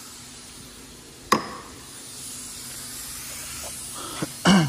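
Hand tools being handled in a car repair shop: a sharp knock about a second in, a few light clicks, and a louder clatter near the end, over a steady hiss.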